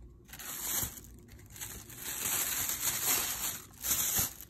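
Rustling and crinkling, like paper being handled, coming in several uneven swells.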